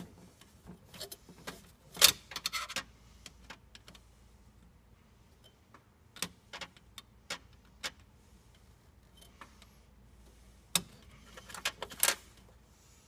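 Irregular small metallic clicks, taps and brief scrapes from hands working inside a photocopier's sheet-metal frame at the toner sensors, with the sharpest clatter about two seconds in and again near the end.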